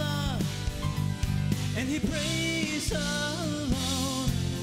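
Two acoustic guitars playing a slow song, with a wavering sung melody line over the chords and no clear words.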